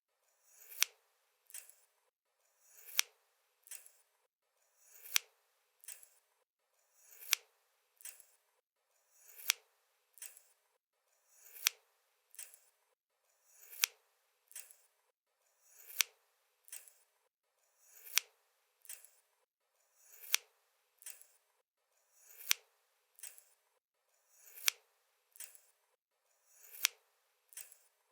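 Scissors snipping: a sharp snip followed by a softer second click, the pair repeating evenly about every two seconds.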